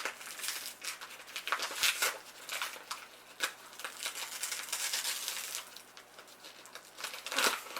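Sugar bag rustling and crinkling as sugar is scooped and poured into a measuring cup, an irregular run of short rustles and scrapes.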